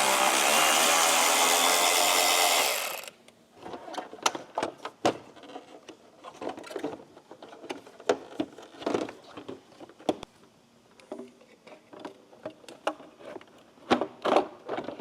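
Power driver spinning out the headlight's T25 Torx screw, running steadily for about three seconds and then stopping. Scattered clicks and knocks of the screw and light fittings being handled follow.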